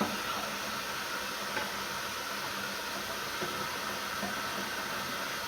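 Steady hiss of food cooking on a stovetop, a pot sizzling and simmering, with a faint tick about one and a half seconds in.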